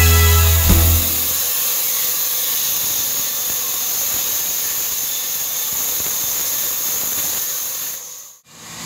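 Background music ends about a second in, leaving the steady high hiss and whine of a sawmill band saw running, which fades out near the end.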